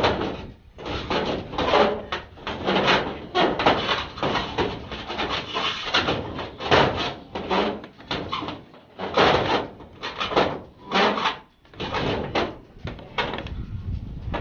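PVC conduit and the service wire inside it scraping and rubbing against the edge of a hole in a sheet-metal fascia as they are pushed through by hand, in short irregular strokes, more than a dozen.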